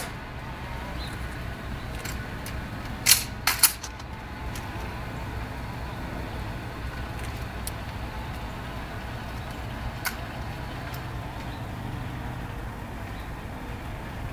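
A few sharp slaps and clicks from the Tomb Guards' rifle drill during the rifle inspection: three close together about three seconds in and one more near ten seconds. Under them is a steady low background hum.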